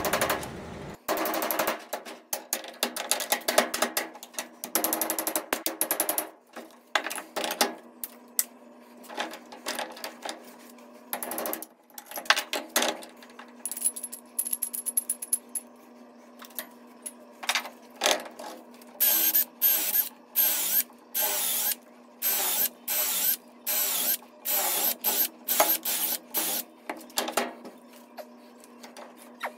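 Hammer blows on a steel punch driving old wooden handle stubs out of axe eyes clamped in a bench vise, coming in quick runs of strikes, with stretches of power-drill work between. A steady low hum runs underneath.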